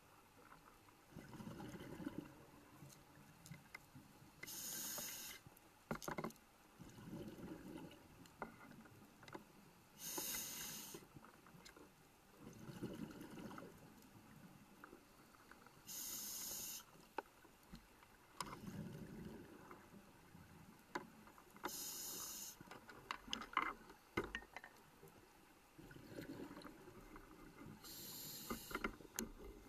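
Scuba diver breathing through a regulator underwater: five hissing inhalations about six seconds apart, each followed by a lower gurgle of exhaled bubbles. A few sharp clicks about three quarters of the way through.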